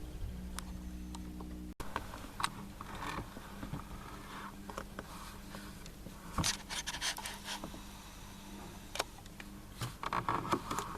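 Scattered small clicks, scrapes and rustles from gear being handled inside a hunting hide, with a couple of busier bursts of handling noise.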